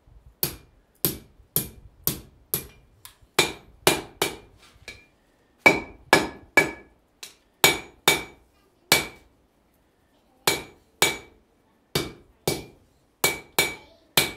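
Blacksmith's hand hammer striking red-hot iron on an anvil, about two blows a second in runs, each blow followed by a short clear ring from the anvil. The hammering pauses for about a second and a half past the middle, then resumes.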